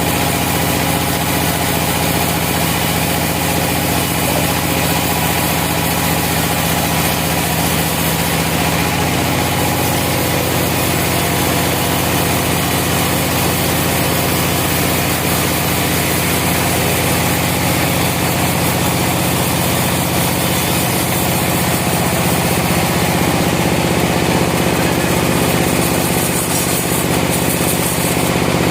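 Sawmill's engine running steadily at an even speed.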